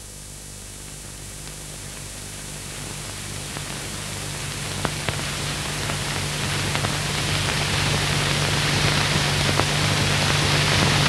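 Steady hiss with a low hum underneath and a few faint clicks, slowly growing louder.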